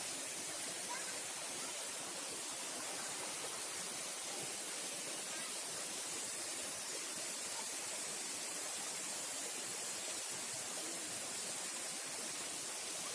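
Steady rush of flowing water on a mountain trail near a waterfall, an even hiss without any breaks.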